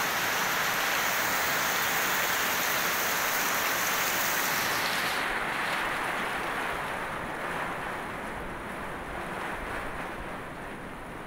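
Heavy rain falling on the plants and netting of a small garden aviary, a steady rushing hiss. About five seconds in its high hiss drops away and it grows duller and slowly quieter.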